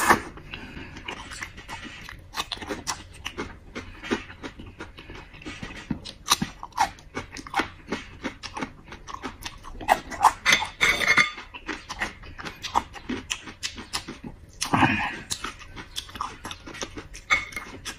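Close-miked wet chewing and lip-smacking of soft boiled lamb tail fat, an uneven run of small mouth clicks with a few louder bites.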